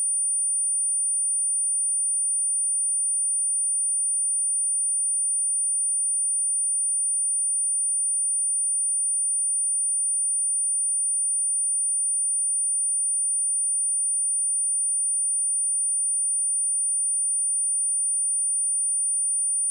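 A steady, high-pitched 9336 Hz sine-wave test tone, one pure pitch held without change.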